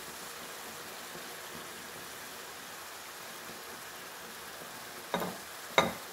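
Minced meat simmering and sizzling softly in a frying pan over a low gas flame, a steady even hiss. Two sharp knocks about half a second apart near the end.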